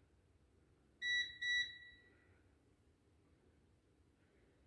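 Timer alarm giving a high double beep about a second in, signalling that the six-minute steep of the French press coffee is up.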